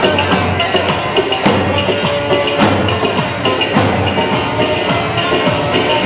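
Live Turkish folk dance tune (oyun havası) played on bağlama, electronic keyboard and davul bass drum, amplified through loudspeakers, with a steady driving drumbeat.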